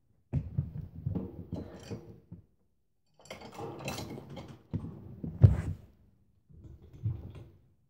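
A home multi-station gym rattling and clunking under a person's weight during pull-ups, in four bursts with a sharp knock about five and a half seconds in.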